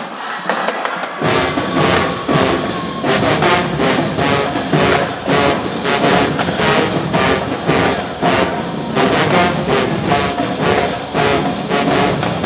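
Marching band playing: brass section of trombones and trumpets with drumline hits, coming in loud about a second in and playing on with a strong, regular beat.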